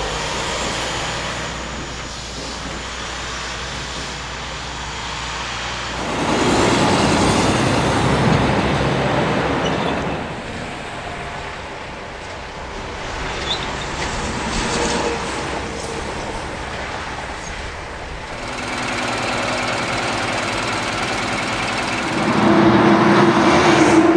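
Heavy trucks and other road traffic driving past, one after another, engine and tyre noise swelling and fading with each pass. The loudest passes come about six seconds in and near the end, the last one with a steady low diesel engine drone.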